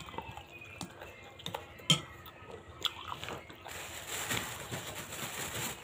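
Close-up mouth sounds of drinking water from a glass: small sharp clicks and gulps, one louder click just under two seconds in. Then a steady breathy hiss lasts about two seconds near the end.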